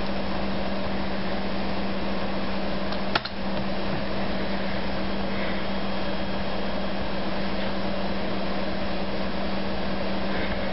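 Steady whir and hum of running desktop computers, with a low steady tone under it, and one sharp keyboard key click about three seconds in as a command is typed.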